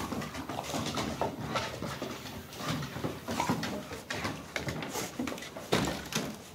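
Dogs play-fighting: a quick, irregular run of short growls and scuffles on wooden decking, with one louder burst near the end.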